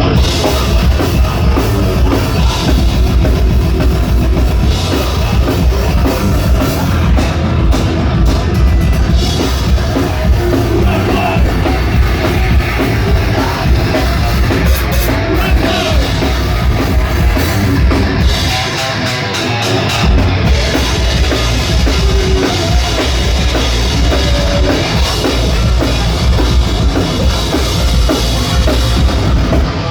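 Live heavy rock band playing at full volume: pounding drum kit with distorted electric guitars and bass, and a vocal in places. The kick drum and bass drop out briefly about two-thirds of the way through, then come back in.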